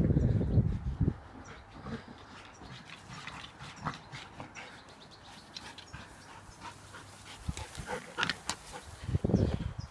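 A fox red Labrador making short, scattered play noises, loudest about eight seconds in when it is right at the microphone. A low rumble sits under the first second and comes back near the end.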